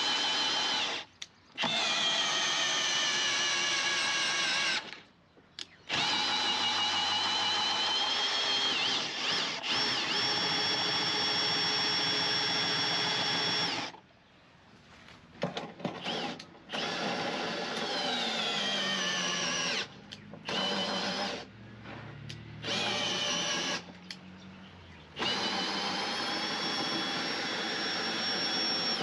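Cordless drill winding a slide-on camper's jack leg down, its motor whining in repeated runs. The early runs last several seconds, the later ones are shorter, and the pitch slides down during some of them.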